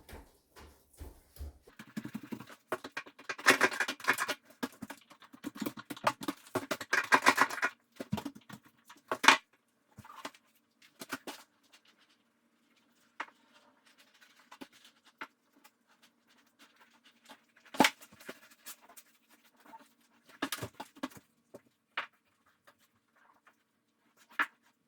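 Thick coat of RedGard liquid waterproofing membrane being spread over a shower wall: two runs of dense scratchy brushing strokes early on, then scattered light taps and clicks as the work goes on.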